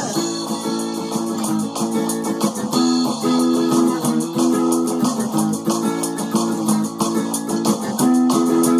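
Instrumental guitar passage in a song: chords strummed in a steady rhythm, with no singing.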